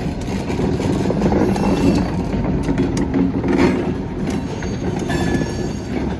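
A short freight train rolling past, a steady heavy rumble with scattered clicks of steel wheels on the rails.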